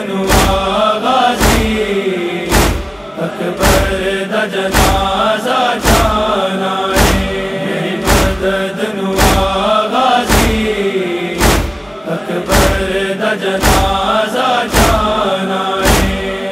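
Noha chorus of male voices chanting the refrain. Under it runs a steady matam beat of deep thumps, about two a second in a long-short pattern.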